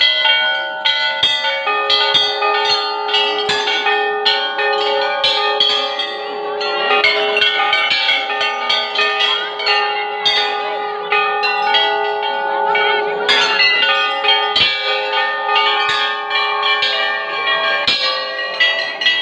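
Large hanging brass temple bells rung by hand over and over, their strikes coming every second or so and their rings at several pitches overlapping into one continuous clangour.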